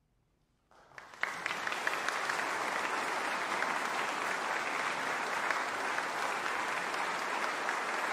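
Audience applause after the orchestra finishes. A moment of near silence, then a few single claps about a second in, quickly swelling into steady, dense clapping.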